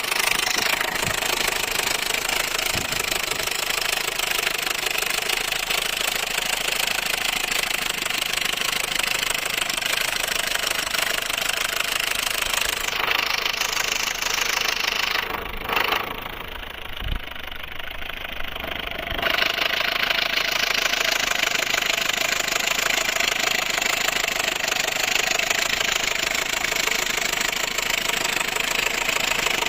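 Opel Astra H 1.4 16v four-cylinder petrol engine running with a rattling, knocking 'tractor noise', the sign of an engine fault the owner has not yet identified. The sound turns quieter and duller for a few seconds about halfway through.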